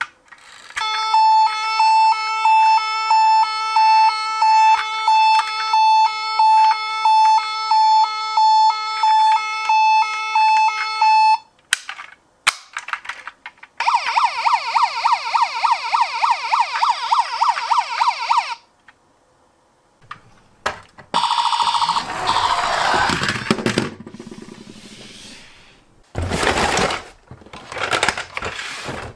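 Battery-powered toy emergency vehicle's electronic siren module. It first gives a steady repeating beep, about one and a half a second, for some ten seconds. Then comes a fast warbling siren for about four seconds, followed by a falling sweep and short clattery bursts near the end.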